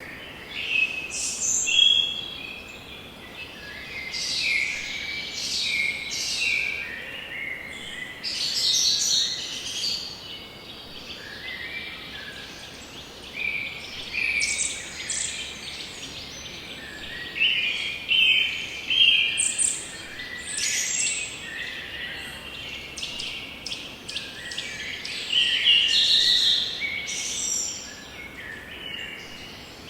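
Several songbirds singing and chirping in a forest, overlapping short calls and trills in the upper register over a faint steady background hiss.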